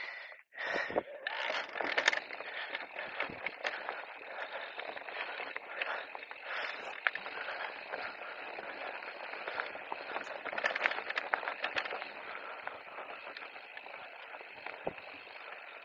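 Radon Deft electric mountain bike riding down a rocky trail: steady rolling noise of the tyres on stones and loose ground, with frequent small clicks and rattles from the bike.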